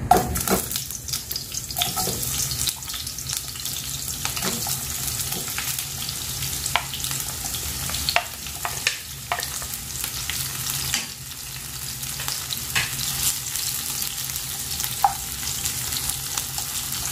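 Sliced onions and green chillies sizzling in hot oil in a pan, the sizzle breaking out suddenly as they go in, with a utensil clicking and scraping against the pan as they are stirred and sautéed.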